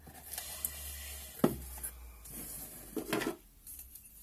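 Hands picking at and peeling clear packing tape off a small cardboard box: faint crackly rustling, a sharp tap about a second and a half in, and a short scuff about three seconds in.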